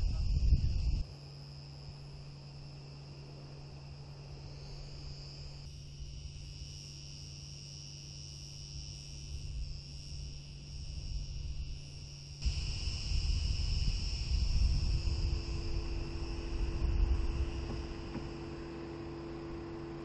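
Cicadas buzzing steadily in the pine trees, a continuous high drone. Low wind rumble on the microphone drops away about a second in and comes back strongly for the second half.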